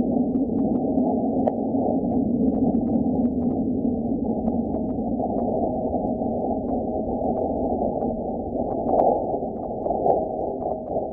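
Sonified seismometer recording from NASA's InSight Mars lander of a meteoroid impact, sped up 100 times to be audible. It is a steady low rumble that slowly fades, with scattered faint crackles and two brief swells near the end.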